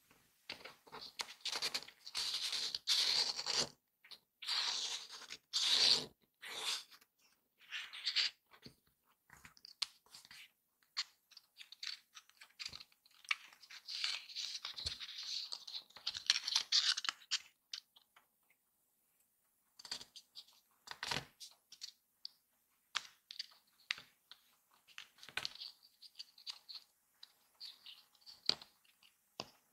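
A paper strip being folded, creased and pressed flat by hand: crinkling, crackling paper in several long bursts, then lighter taps and rustles over the last third.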